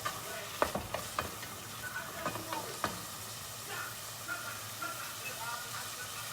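Onions frying in oil in a pan, sizzling steadily, with a utensil clicking and scraping against the pan several times as they are stirred, mostly in the first few seconds.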